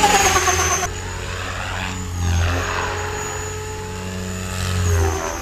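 KDS Innova 550 electric RC helicopter flying aerobatics, its motor whine and main rotor blade sound shifting in pitch and swelling as it moves about. It is loudest at the very start, where the pitch drops, and swells again a little after two seconds and near the end.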